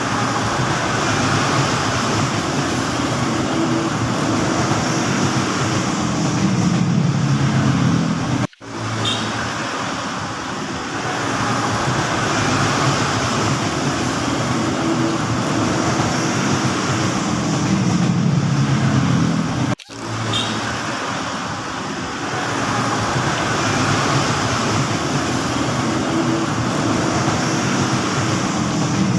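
Steady mechanical hum and rumble like traffic or running machinery, cut by two brief dropouts about a third and two thirds of the way through.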